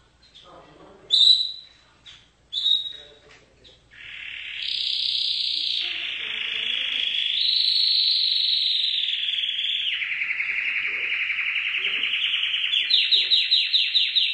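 Domestic canary singing: a few short chirps, then about 4 s in a long unbroken song of rapid rolling trills that shift pitch from phrase to phrase, closing with a run of distinct quick repeated notes.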